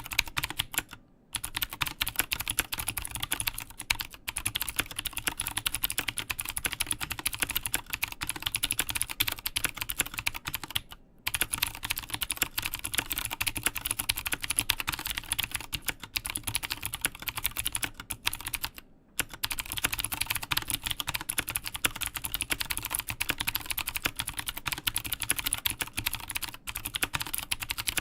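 Fast, continuous typing on an Mstone Groove T CNC aluminium mechanical keyboard with clicky Cherry MX Blue switches and Mstone Dark City keycaps, with a few brief pauses.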